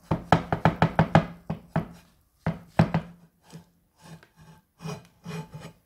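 Frying pan knocking and scraping on a wooden cutting board as a potato pie is slid out of it: a quick run of taps for about two seconds, then a few scattered knocks.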